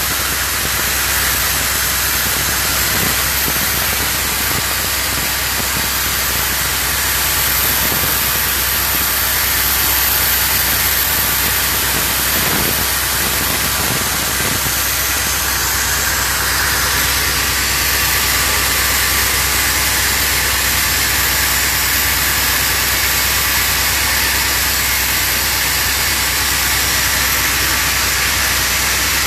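Hangzhou Fortune oxygen-generating machine running: a loud, steady hiss with a constant low hum underneath.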